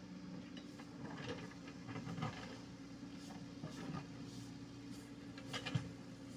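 Komatsu PC75UU mini excavator's diesel engine running steadily at low revs, with a few scattered knocks and scrapes, the sharpest near the end.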